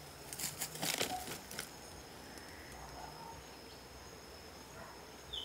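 Faint outdoor background with a thin, steady high-pitched tone. A short burst of rustling crackles runs from about half a second to a second and a half in.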